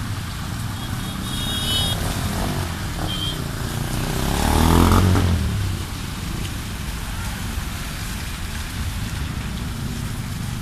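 Motorcycle and car engines running in slow traffic through floodwater, with a steady low rumble. One vehicle passes close about halfway through, growing louder and then fading.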